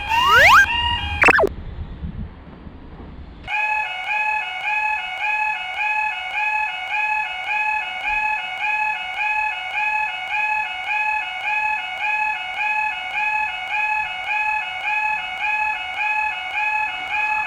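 Japanese level-crossing electronic warning bell ringing steadily, about two strokes a second. In the first second or so a loud rising whine over rumble, typical of an electric train passing, cuts off suddenly. The bell starts again about three and a half seconds in after a quieter gap.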